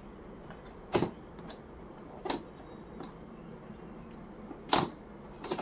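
Box of a small portable tyre inflator being opened and its packaging handled: short cardboard-and-plastic rustles and clicks, three of them louder than the rest.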